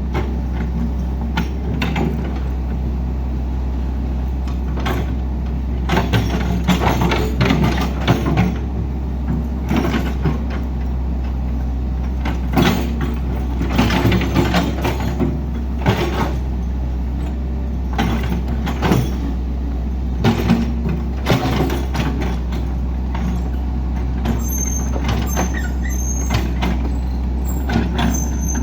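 A heavy diesel engine runs steadily while repeated sharp clanks and knocks of working machinery sound throughout.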